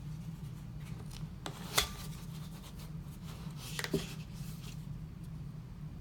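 Hands handling an object, with rubbing and rustling, one sharp click about two seconds in and a short run of clicks near four seconds, over a steady low hum.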